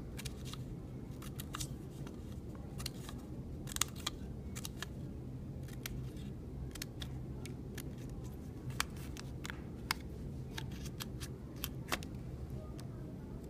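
Scissors snipping construction paper in short, irregular snips, cutting small triangular notches around the edge of a paper circle to shape flower petals.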